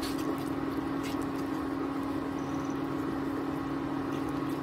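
Steady hum of an induction cooktop running under a pan, with a few faint scrapes of a wooden spatula stirring thick masala in a non-stick pan.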